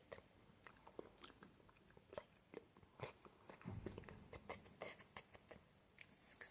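Close-miked ASMR mouth sounds: soft, irregular clicks and smacks of lips and tongue, with a low thump a little under four seconds in and a quicker run of crisp clicks near the end.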